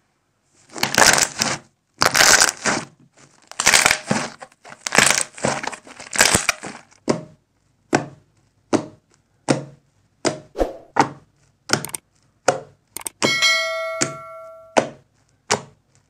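Fluffy slime being squished by hand: first five long crackly squelches about a second apart, then a run of short sharp pops and clicks as fingers poke into it. About 13 seconds in, a chime rings and fades over about a second and a half, the ding of a subscribe-bell animation.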